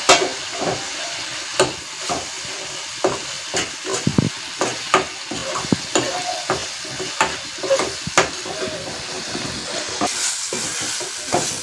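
Masala with freshly added ginger-garlic paste sizzling in oil in a steel kadai while a metal ladle stirs and scrapes it, with irregular sharp clinks of the ladle on the pan. The sizzle grows louder near the end.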